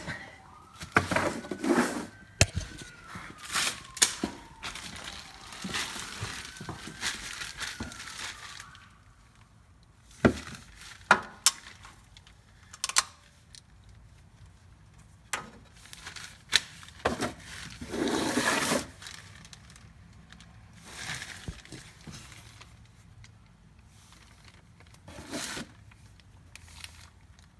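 Scattered clanks, clicks and scraping of hand tools and a drain pan while the oil drain plug is loosened under a Mercedes GLK350. A faint wavering tone runs through the first several seconds, and there are two noisy stretches, one in the first third and one a little past the middle.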